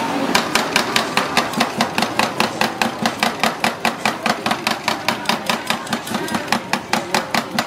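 Two metal spatulas chopping ice cream mix on the chilled steel cold plate of a Thai rolled ice cream stall. The blades strike the metal plate in a quick, steady rhythm of about five sharp clicks a second.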